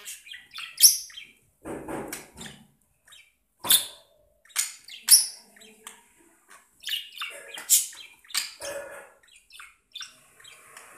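Pet budgerigar chirping in an irregular run of short, sharp chirps, a few of them louder than the rest.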